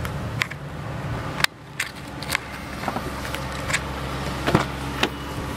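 Clicks and knocks from handling inside a 2008 Ford Expedition Max, about eight of them spread over five seconds, over a steady low hum. The background cuts off suddenly about one and a half seconds in, then builds back.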